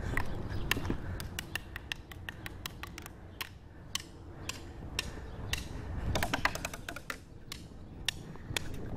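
Wooden sticks beating on a tree trunk, sharp irregular taps and clicks with a quick flurry of them about six seconds in, over a low rumble.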